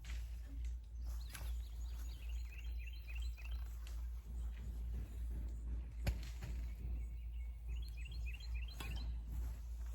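A songbird calling outdoors in two quick runs of short chirps, one a couple of seconds in and another near the end, over a steady low rumble. A few sharp knocks come in between, the loudest about six seconds in.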